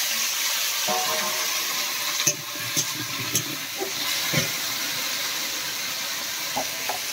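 Hot oil sizzling steadily in a metal kadai as taro pieces fry in the spice paste, with a few sharp clicks of a metal spatula against the pan.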